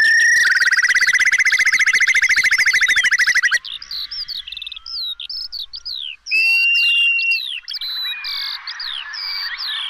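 Whimbrel calls. A loud, rapid rippling trill runs for about three seconds, then gives way to a stream of short falling chirps and a few drawn-out whistles.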